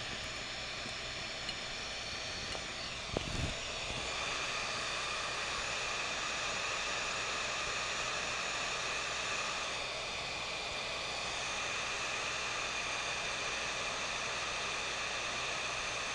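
Hot-air heat gun of a ToAuto DS882 rework station blowing steadily on heat-shrink tubing, shrinking it around a soldered wire joint: an even airy hiss with a steady high tone in it. A couple of light knocks come about three seconds in.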